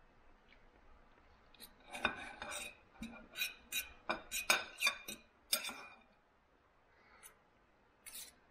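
Knife and fork clinking and scraping against a dinner plate while food is cut up: a quick run of about a dozen sharp clinks over some four seconds, then two more near the end.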